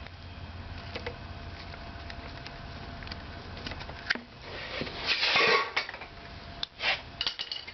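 Clicks and rattling clatter of plastic and metal parts being handled, from swapping a quad's CDI unit and unplugging its clip connectors, over a low steady hum. The clatter starts about four seconds in and comes in several short bursts.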